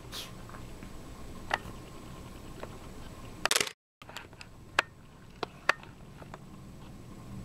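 Canon PowerShot S5 IS taking a still picture while recording video: a quick cluster of shutter clicks about three and a half seconds in, after which the sound cuts out for a moment. A few more sharp single clicks from the camera follow.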